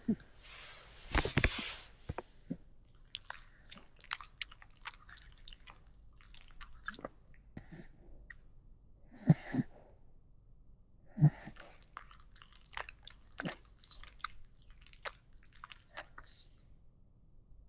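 A sleeper's breathing and mouth noises: a breathy exhale about a second in, then scattered wet clicks and lip-smacking, with two short snorts about nine and eleven seconds in.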